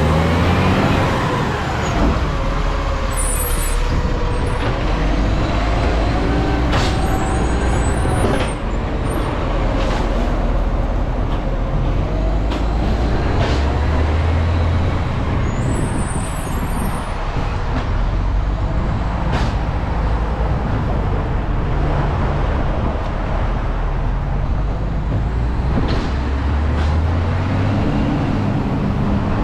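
Garbage truck's diesel engine running under load, its pitch rising and falling as it works and moves, with scattered knocks and two short air-brake hisses, about three seconds in and again about sixteen seconds in.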